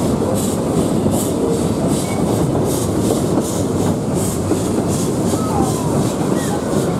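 Narrow-gauge steam train running across a timber trestle bridge, heard from its carriage: a steady rumble of the wheels and carriages, with a regular hissing beat of the locomotive's exhaust chuffs about twice a second and a few faint short squeals.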